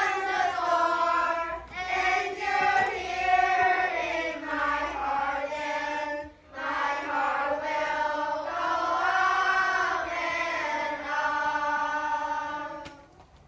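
A group of children's voices in unison, delivering drawn-out pitched phrases together, with a short break about six seconds in and a stop just before the end.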